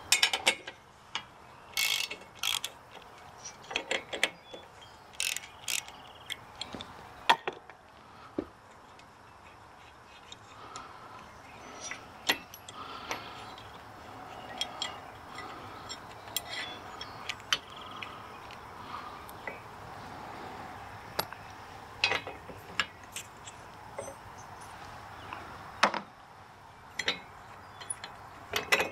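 Ratchet wrench clicking as it turns a nut on a steel bracket, with scattered metal clinks and knocks as the bracket, bolt and spacer are worked by hand.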